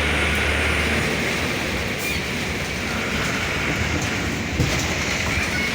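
Heavy rain and road noise heard from inside a moving vehicle: a steady rushing hiss over a low rumble, with a low hum fading out about a second in.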